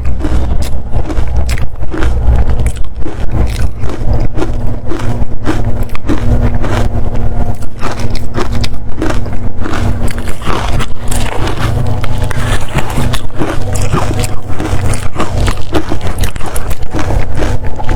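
Biting and crunching into dry-textured frozen matcha ice: a continuous run of crisp cracks, several each second.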